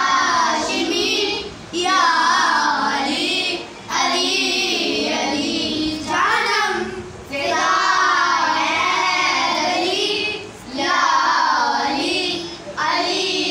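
A group of children singing a manqabat, a devotional praise poem, together in short phrases broken by brief pauses.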